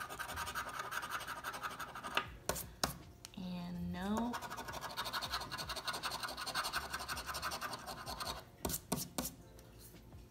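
A coin scraping the latex coating off a scratch-off lottery ticket in rapid back-and-forth strokes, with a few sharp taps of the coin in between.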